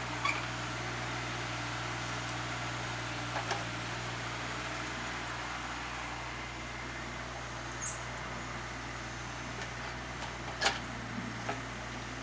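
JCB 8014 CTS mini excavator's diesel engine running steadily as it digs a trench in compact, solid ground, with a few sharp knocks, the loudest about ten and a half seconds in.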